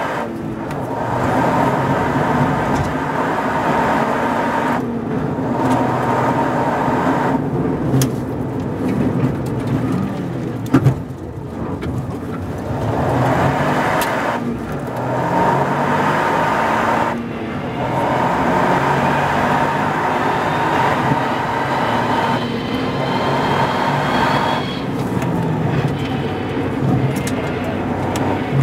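Toyota GR Yaris rally car's turbocharged 1.6-litre three-cylinder engine heard from inside the cabin, pulling hard through the gears and repeatedly dropping off throttle for braking and shifts before picking up again. A single sharp crack about eleven seconds in, and a high whine rising in pitch near the end under acceleration.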